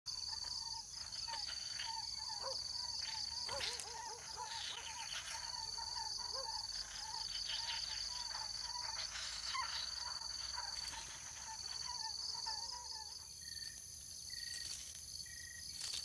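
Outdoor birds and insects: a steady high insect buzz that pulses and keeps up throughout, while a bird repeats a short call two or three times a second, stopping about three quarters of the way through, with other bird chirps scattered over it.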